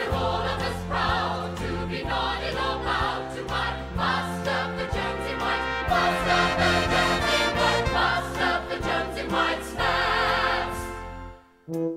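Stage-musical show tune: an orchestral passage with a chorus singing. It drops away sharply near the end, leaving a few separate notes.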